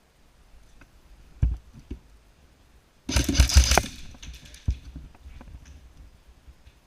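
A short burst of rapid clattering shots lasting under a second, typical of an airsoft electric MP5 on full auto, with a couple of sharp knocks before it and one after.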